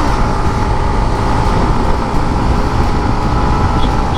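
Yamaha MT-15's single-cylinder engine running steadily under throttle at highway speed, with wind rumbling on the microphone.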